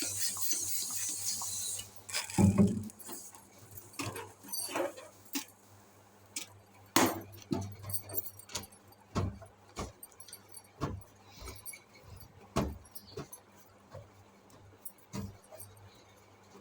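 Air hissing for about the first two seconds, then a dull thump and scattered sharp clicks and taps: balloons being handled.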